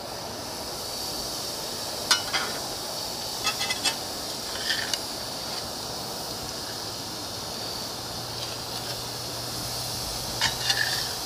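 Raw beef burger patties sizzling on a hot charcoal grill grate, with a few groups of sharp metallic clicks from the spatula knocking against the grate as the patties are laid down, the last group near the end.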